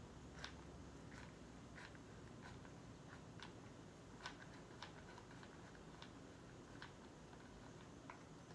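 Faint, irregular small clicks, roughly one a second, from a hot glue gun being worked over the back of a small sign, against near silence.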